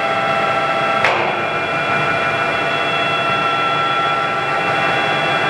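Kingston HD series gear-head lathe running under power with its spindle at 800 RPM: a steady sound of several tones from the headstock, with a sharp click about a second in.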